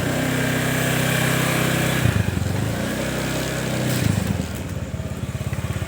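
A small engine running steadily, with a brief dip in pitch about two seconds in and a change in its note about four seconds in.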